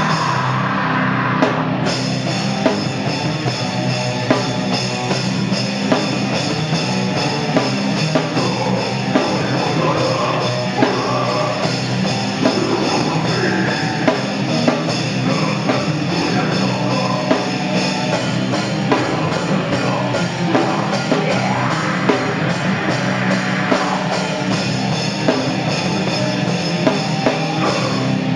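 A heavy metal band playing live: distorted electric guitars, bass and a drum kit, with the drums close up.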